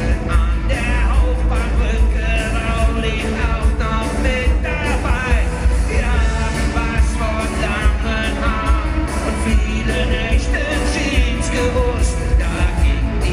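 Live rock band playing, with a singer's voice over guitars, drums and heavy bass.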